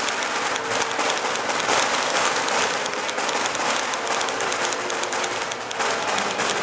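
A large crowd applauding, a steady dense patter of clapping.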